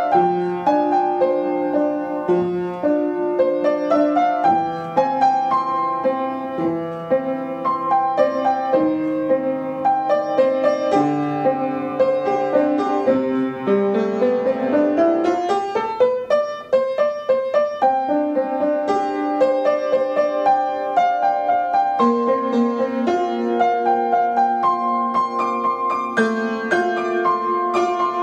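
Solo upright piano playing a flowing piece, notes in steady succession, with a quick rising run about halfway through.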